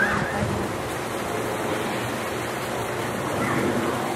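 Steady rushing noise outdoors, with a faint voice briefly near the start and again about three and a half seconds in.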